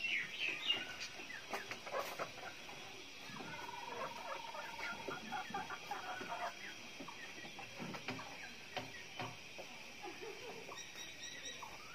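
Chickens clucking in their coops, with a few short high calls in the first second and a quick rattling run of clucks in the middle.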